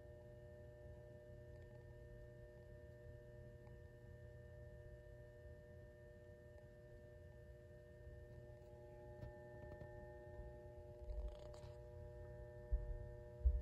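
Faint, steady hum of a 100 W mercury vapor lamp's ballast, several steady pitches running together while the lamp warms up. A couple of low bumps come near the end.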